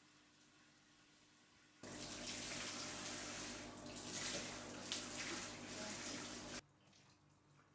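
Water running from a tap, turned on about two seconds in and shut off abruptly about a second before the end.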